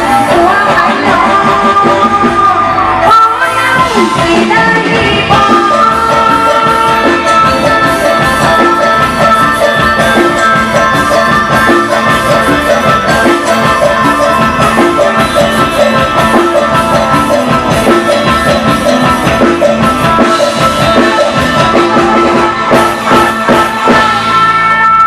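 Isan-style Thai band music at full volume: a steady drum-kit beat under held melodic instrument lines, with some singing.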